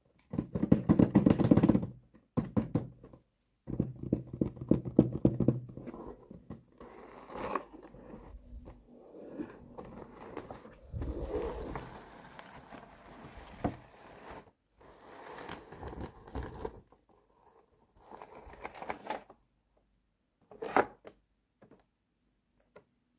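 Small plastic pieces of a miniature toy kitchen set being handled: clicking, tapping and scraping in irregular bursts, with a short sharp clatter near the end.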